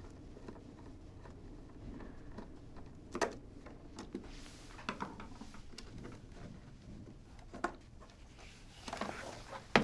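Quiet handling sounds as small screws are undone from the jaw of a fabric respirator shroud: a few scattered sharp clicks and soft rustling of the shroud fabric, with a louder rustle near the end.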